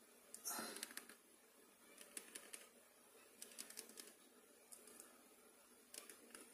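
Faint clicks of the keypad buttons on a miniature car-shaped MTR Ferrari feature phone being pressed, in short runs of two or three presses. A brief soft rush of noise comes about half a second in.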